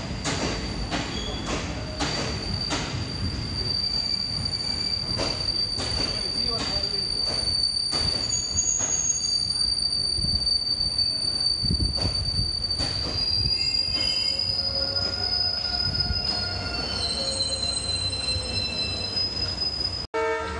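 Passenger train's steel wheels squealing against the rails in one steady high-pitched squeal, with several more squeal tones joining in during the second half. Under it, repeated clicks of the wheels over rail joints. It all cuts off suddenly near the end.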